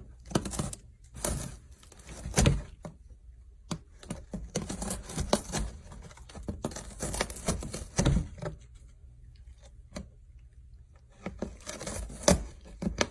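Irregular knocks, clicks and rattling, rustling handling noises, with a few louder thumps about two and a half, eight and twelve seconds in.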